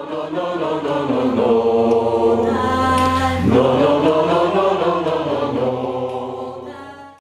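A mixed choir of men and women singing a slow, held phrase over one steady low note. It swells in at the start and fades away near the end.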